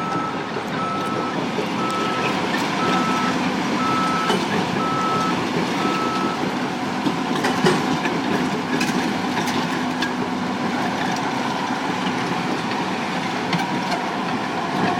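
A vehicle's reversing alarm beeping at a steady pace, single high beeps repeating evenly and stopping about six seconds in, over the steady rumble of heavy machinery.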